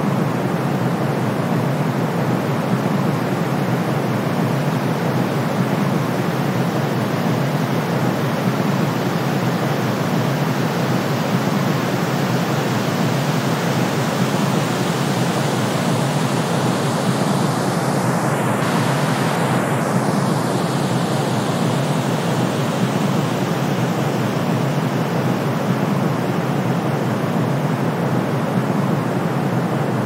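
Steady synthetic noise: brown noise mixed with white noise, a deep even rush heaviest in the low range with a thinner hiss on top, unchanging in level.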